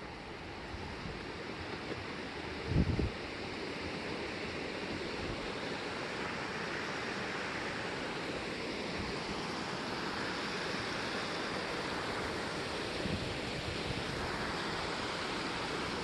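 Rushing mountain creek tumbling over boulders, a steady hiss of fast white water running high and strong. A brief low thump on the microphone about three seconds in.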